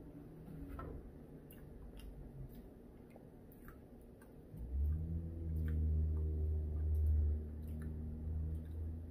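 A man chewing cornbread with small wet clicks of the mouth. About halfway in, a long, low, steady "mmm" hum of enjoyment sets in and runs on for about four seconds. The hum is the loudest sound.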